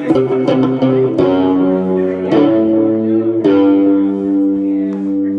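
A guitar playing held chords, with a new chord struck about every second.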